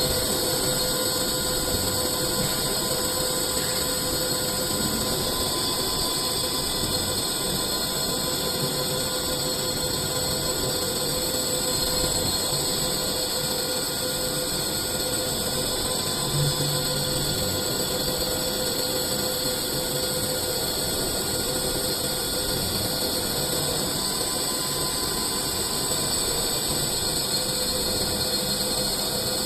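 CNC machine running steadily while turning a cylinder into a ball: a continuous high hiss with a faint steady whine underneath.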